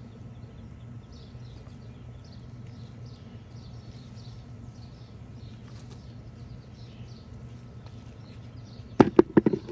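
Faint chirping of birds, repeated every fraction of a second over a steady low hum, then a quick run of about five sharp knocks near the end.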